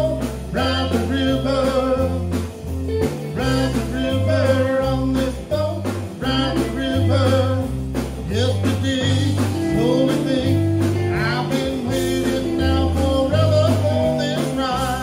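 Blues-rock band playing live: a singer over electric guitars, electric bass and drums, with a bass line that moves note to note under a steady drum beat.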